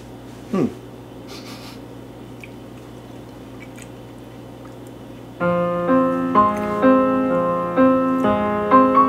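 Quiet room tone with a low steady hum and one short falling voice sound about half a second in. About five and a half seconds in, background piano music starts, with held chords that change every half second or so.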